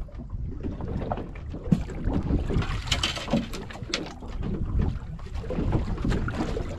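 Wind and water slapping around a small fishing boat's hull, with scattered clicks and knocks of hands handling gear at the rail.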